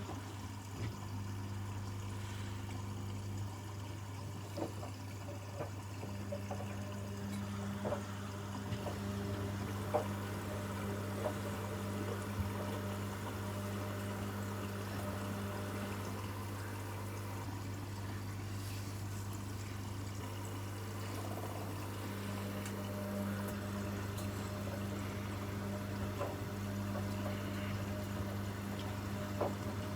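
Washing machine running with water flowing through it, over a steady low hum, with a few small clicks here and there.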